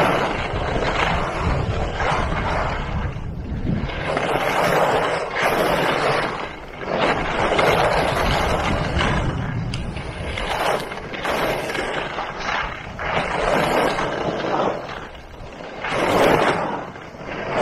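Skis scraping and sliding over snow, with wind rushing over the microphone, swelling and easing every second or two.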